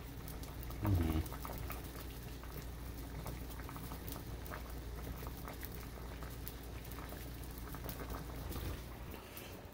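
Saucepan of water at a rolling boil around Brussels sprouts: a steady bubbling made up of many small pops.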